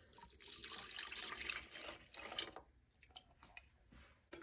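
Evaporated milk poured from a plastic measuring cup into a stainless steel saucepan, a steady quiet splashing stream for about two and a half seconds that then stops, followed by a few faint clicks.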